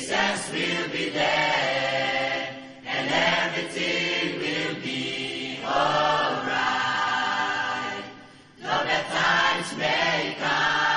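Mixed youth choir of male and female voices singing together in sustained phrases, with short breaks between phrases about three seconds in and again just after eight seconds.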